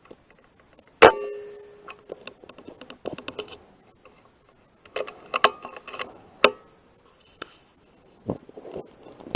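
A single sharp rifle shot about a second in, with a short metallic ring after it. It is followed by bursts of light metallic clicks and rattles, as of the rifle being handled and reloaded.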